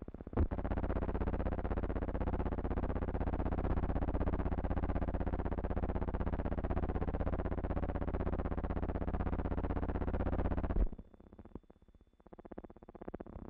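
A steady, distorted low buzzing hum with many overtones, cutting off suddenly about eleven seconds in, after which only faint crackle remains.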